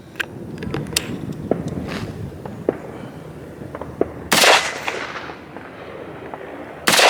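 Two single rifle shots from an AR-15 carbine running a buffer-less bolt carrier group, about two and a half seconds apart, after a few small metallic clicks of handling.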